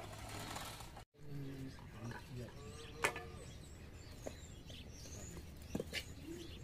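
Small birds chirping faintly, with a couple of sharp clicks from a knife working onions.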